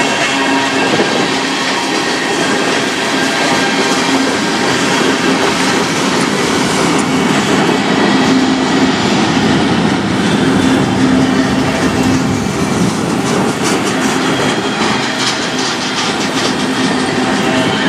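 Freight cars of a passing manifest train (covered hoppers, tank cars and flatcars) rolling by at close range: a loud, steady rumble and rattle of steel wheels on the rails. A low hum comes and goes, and sharper clicks of wheels over rail joints come in the last few seconds.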